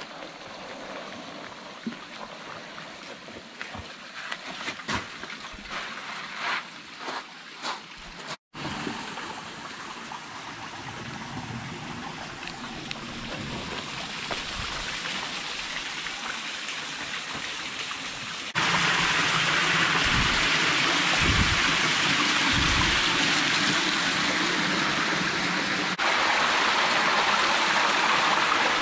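Scrapes and knocks of a hiker clambering over canyon boulders on a fixed rope. Then a steady rush of water grows slowly louder. After a sudden jump about two-thirds of the way through, a small hot-spring stream splashes down over rock, the loudest part.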